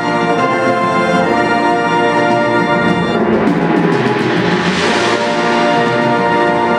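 Concert wind band with a large brass section playing sustained chords. About three seconds in, a hiss swells and then fades.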